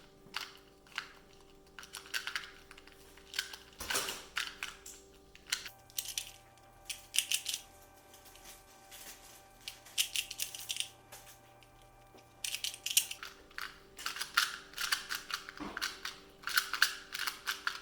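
A 2x2 Rubik's cube being turned fast in a speed-solve: rapid bursts of plastic clicking and clacking as its layers snap round, in irregular runs with short pauses between, over a faint steady hum.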